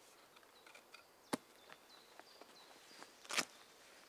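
A single sharp knock of a wooden baton striking a tent peg about a second in, then a short scuffing sound near the end, over faint bird chirps in the forest.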